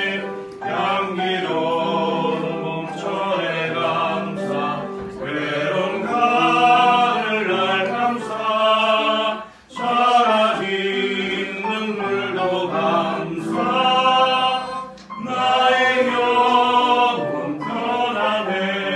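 A group of voices singing a slow song together in long, held phrases, with short breaks about ten and fifteen seconds in.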